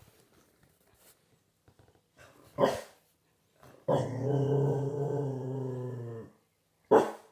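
Staffordshire bull terrier puppy barking once, then growling low and steadily for about two and a half seconds, then barking once more near the end. The growl is really loud.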